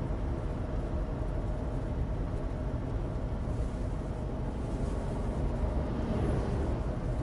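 In-cabin road and engine noise of a Suzuki Alto Turbo RS (HA36S) with its 660 cc three-cylinder turbo engine, driving on a dry road on studless winter tyres. Steady, a little louder from about six seconds in.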